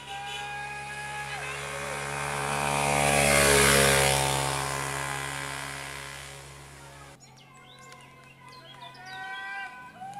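A vintage motorcycle engine pulling up the hill and passing close by, getting louder to its peak about three and a half seconds in, dropping in pitch as it goes by, then fading. The sound breaks off suddenly about seven seconds in.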